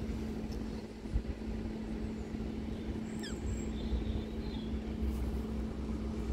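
A steady low engine hum over a rumble, like a vehicle idling, with a brief high chirp that falls in pitch about three seconds in.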